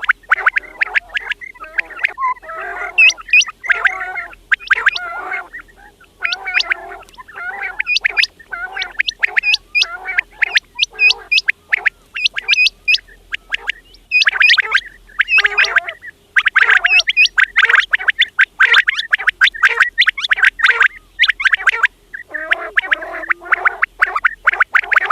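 Quails calling: a dense, rapid chatter of short, sharp calls, several a second, with only brief pauses.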